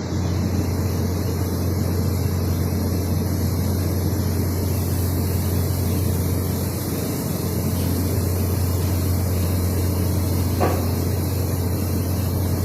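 Submerged arc welding equipment running on P91 alloy steel: a steady low hum with an even hiss. A brief short sound cuts in about ten and a half seconds in.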